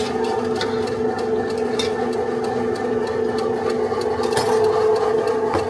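A steady motor hum holding an even pitch, with scattered light clicks and knocks over it.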